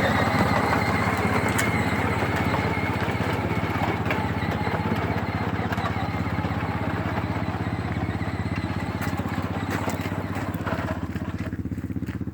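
Toy car's electric motor running steadily as the car drives, a low hum with a fine rattle over it; the higher part of the sound thins out near the end.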